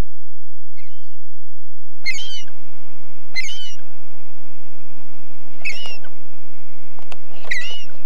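Gull calls: four short, high, sharp calls spaced a second or two apart, with two fainter calls near the start. A steady low hum and hiss run underneath from about two seconds in.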